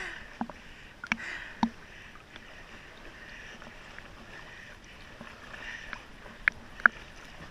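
Running water, with a few sharp clicks and knocks scattered over it: a pair about a second in and two louder ones near the end.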